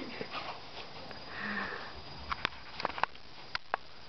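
Small puppy breathing hard through its nose while it hangs from a rope toy clamped in its teeth during a tug game. A handful of short sharp clicks come in the second half.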